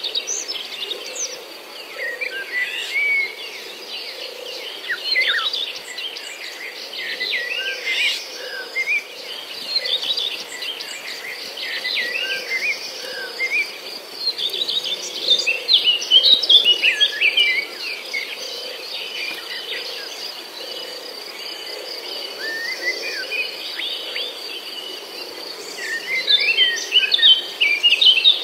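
A flock of sparrows chirping, many short calls overlapping in bunches, busiest about halfway through and again near the end, over a steady high-pitched drone.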